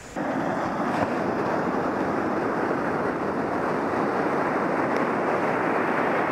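Surf breaking and washing up the beach, a steady rushing noise mixed with wind on the microphone. It begins abruptly just after the start.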